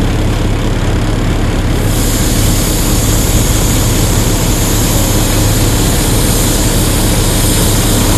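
Loud, steady rumble and hiss of a heavy engine running, with a strong low hum underneath; the hiss grows brighter about two seconds in.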